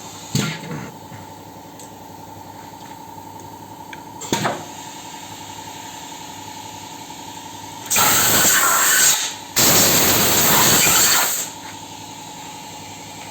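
Two long blasts of compressed air, about a second and nearly two seconds long, over the steady hum of a running machine, with two sharp metallic knocks earlier on.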